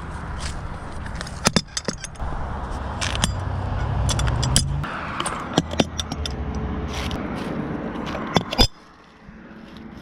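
A truck's engine running with a steady low rumble while keys jangle and sharp clicks sound over it. After a loud click near the end the rumble stops abruptly: the engine is switched off.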